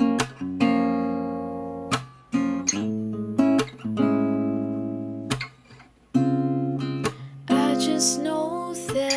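Background music: strummed acoustic guitar chords, each ringing out before the next strum.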